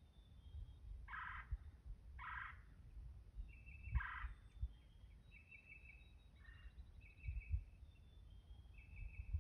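Wild turkeys gobbling: three rattling gobbles in the first four seconds, each under half a second long. Several short, high, steady calls follow later.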